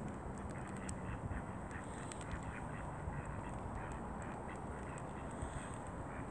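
Ducks quacking in a run of short calls, thickest about a second or two in, over a steady low background rumble.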